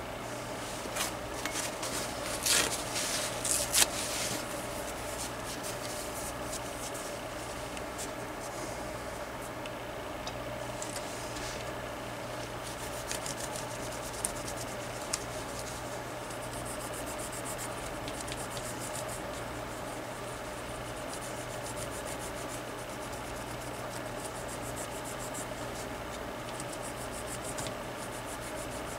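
A small wad of cotton rubbing and scrubbing across a cordless phone's button circuit board, cleaning it with isopropyl alcohol; the scrubbing is loudest in the first few seconds and goes on in fainter strokes after.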